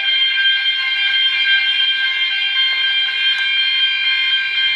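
Building fire alarm sounder going off during a fire alarm system test, one steady unbroken high-pitched tone; the system is still in alarm, not yet reset.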